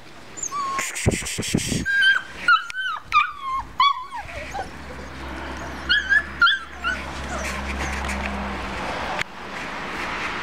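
Bernese mountain dog puppies whimpering and yipping: a string of short, high, wavering cries in the first four seconds, then a few more about six seconds in.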